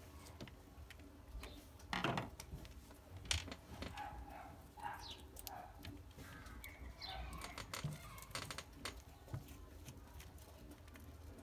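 Light clicks and knocks of a screwdriver and hands on a power drill's plastic housing while undoing the carbon brush holder screws, with two sharper knocks about two and three seconds in. Birds call in the background.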